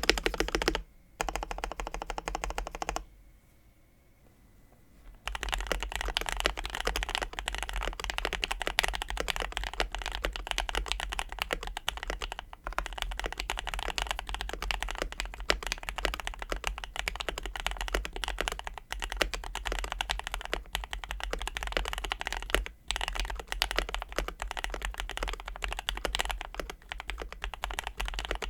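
Continuous typing on a KBD67 Lite mechanical keyboard with lubed Oil King linear switches and KDS keycaps in an ABS plastic case, a deep-sounding board. The typing stops for about two seconds near the start, then resumes with PE foam and a tape mod inside the board.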